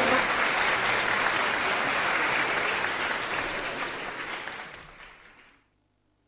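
Audience applauding at the end of a song, dying away about five seconds in.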